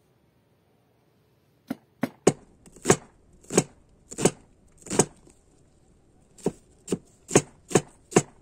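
Cleaver chopping red onion on a wooden cutting board: about a dozen separate knocks, roughly two a second. They start almost two seconds in, with a short pause midway.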